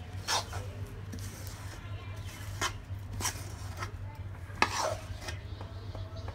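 Metal spoon scraping thick peanut-and-jaggery chikki mixture out of a black kadai, a handful of separate scrapes and clinks of metal on the pan, over a steady low hum.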